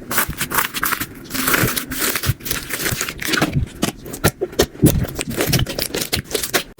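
Slime being squeezed and poked by hand: a quick, irregular run of crackly pops and squishes.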